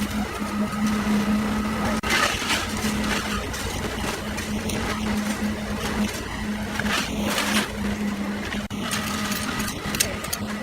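An engine running steadily, with a hum that holds one pitch. Bursts of rattling, scraping noise come about two seconds in, again around seven seconds, and near the end.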